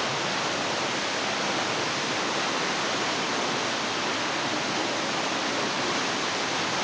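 A small waterfall falling into a rock pool: a steady, unbroken rush of water.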